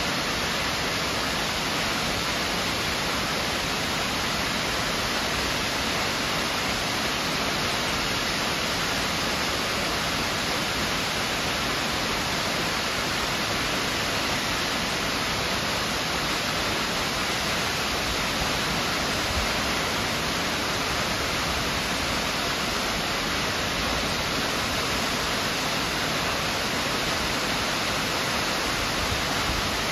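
Waterfall pouring over a rock cliff into a gorge: a steady, even rush of falling water.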